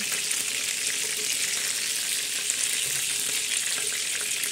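Chicken-breast cutlets frying in a pan of hot vegetable oil over medium heat, the oil sizzling steadily with faint scattered crackles.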